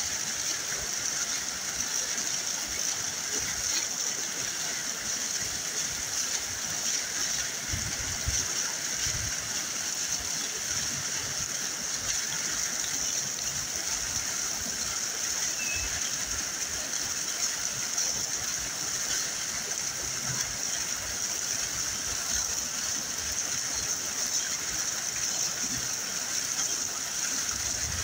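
Waterfall rushing steadily, an even hiss of falling water with no change through the stretch, and a few soft low thumps.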